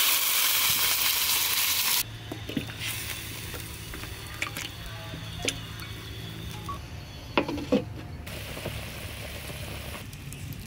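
Loud steam hiss off a big steel wok for about two seconds, cutting off abruptly. After it come quieter scattered clinks and taps of a utensil and ingredients in the wok of duck broth, over a low steady hum.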